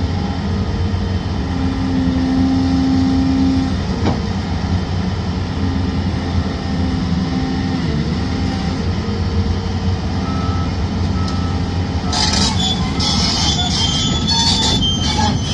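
Volvo EC750DL excavator running steadily, its diesel hum mixed with a hydraulic whine that holds and shifts pitch. About three-quarters of the way through, high-pitched metallic squealing and scraping joins in and keeps on.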